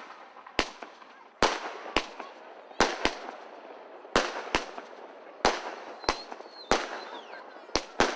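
Aerial fireworks bursting: about a dozen sharp bangs at an uneven pace of one to two a second, with a hiss between the bangs.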